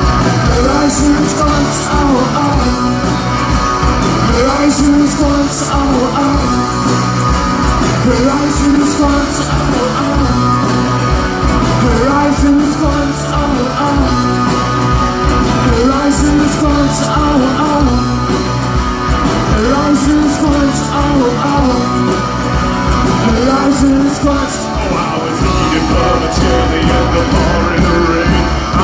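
Live rock band playing loud, with electric guitar, bass guitar and drums under a singer's voice.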